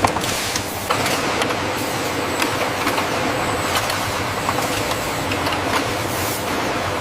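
Industrial processing machinery running steadily, a continuous mechanical din with scattered clicks and clattering knocks.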